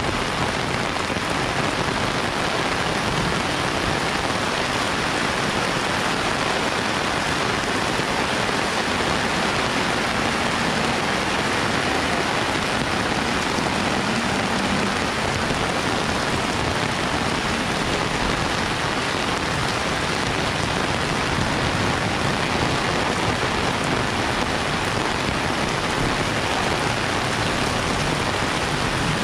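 Heavy rain pouring down in a steady, even downpour, a dense unbroken hiss of rain on the ground and surfaces.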